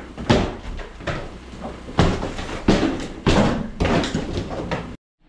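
Demolition work: repeated heavy blows, about one or two a second, as sledgehammers break out the interior walls. The sound cuts off abruptly near the end.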